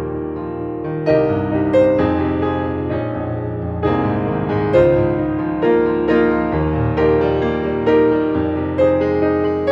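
Background piano music: notes and chords struck about once a second, each ringing on and fading.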